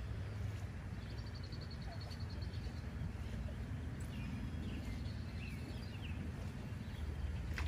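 Outdoor lakeside ambience: a steady low rumble of wind on the microphone, with scattered bird chirps and a short rapid trill about a second in.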